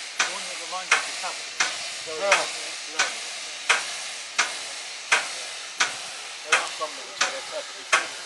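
1917 Baldwin narrow-gauge steam locomotive hissing steam, with a sharp mechanical knock repeating evenly about every 0.7 s.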